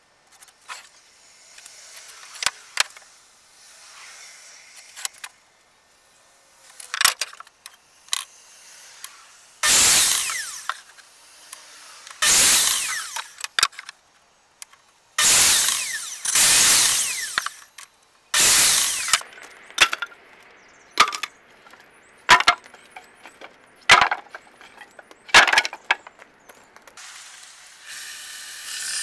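Electric mitre saw cutting pallet wood in a series of short cuts, each a loud burst of a second or two, with knocks and clatter of the boards being handled in between. Near the end a steadier machine hum starts.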